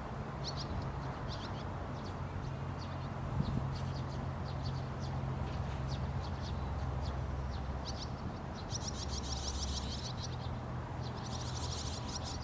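Young barn swallows twittering on a wire: scattered short high chirps, then two dense bursts of rapid chirping near the end, the second as an adult swallow flies in to them, typical begging calls of fledglings being fed. A low steady hum underneath stops about ten seconds in.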